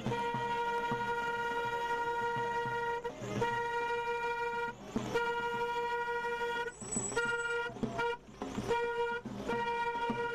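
A car horn held down in long, steady blasts of one unchanging tone, broken by a few short gaps, the gaps coming closer together near the end.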